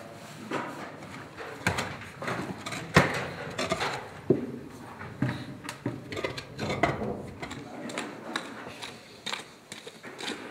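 Irregular clinks and knocks of hand tools striking stone and metal, with scraping in between and one sharper strike about three seconds in.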